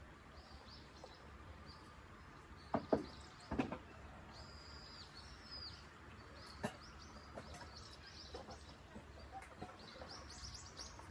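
Small birds chirping, short high calls repeated throughout, with one longer call about halfway. A few sharp knocks sound about three seconds in and once more later.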